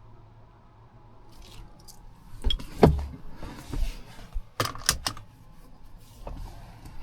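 A few sharp clicks and knocks from something being handled, the loudest about three seconds in and a close pair near five seconds.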